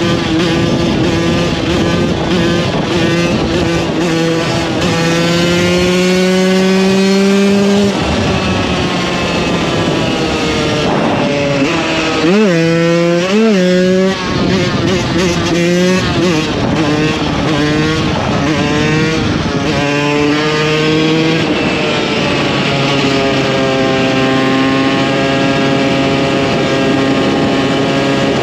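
A 2015 KTM 125 EXC supermoto's two-stroke single-cylinder engine is heard under riding. Its revs rise for a few seconds, then drop. About halfway through there are two quick rev blips, followed by changing throttle, and the engine then settles into a steady drone near the end.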